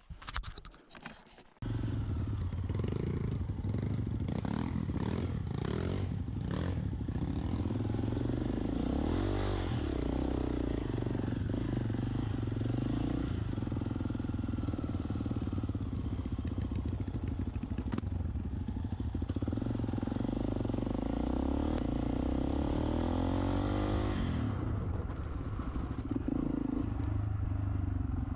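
Dirt bike engine heard from on the bike. It comes in suddenly about two seconds in and runs steadily under riding, its pitch rising and falling with the throttle a couple of times. A few faint knocks come before it.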